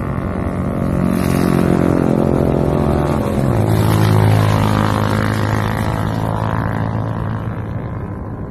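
An engine running steadily, its hum stepping down in pitch about three and a half seconds in, with a rushing noise over it that swells and fades through the middle.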